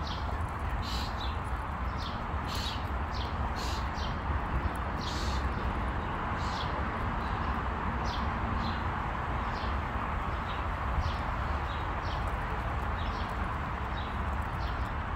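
Footsteps on a paved path at an unhurried walking pace, about one to two steps a second, over a steady background rumble.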